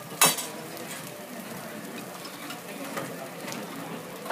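Cooked rice tipped from a tray onto a hot teppanyaki griddle: one sharp knock just after the start, then the rice sizzling steadily on the steel plate, with a few faint clinks.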